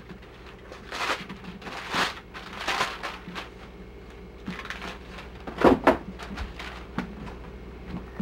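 Wrapping paper tearing and rustling in several short, separate bursts as a present is unwrapped, with a brief voice sound about two-thirds of the way in.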